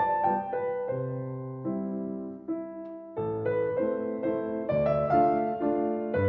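Background piano music: notes and chords changing about once a second.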